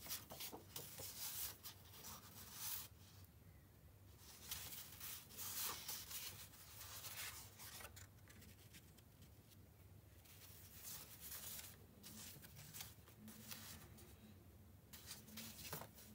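Sheets of paper rustling and sliding against one another as paper cards are handled and laid onto a board, in several faint, irregular bursts.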